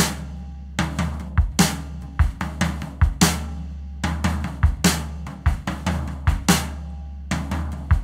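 Band's instrumental intro: a drum kit plays a beat of kick and snare with cymbal crashes, over a held low bass note.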